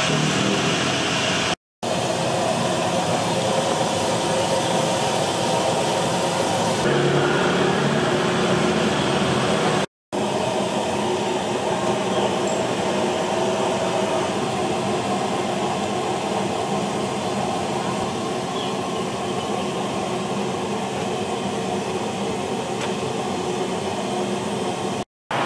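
Steady background hum and noise of a busy breakfast shop, with faint voices in it. It cuts out briefly twice.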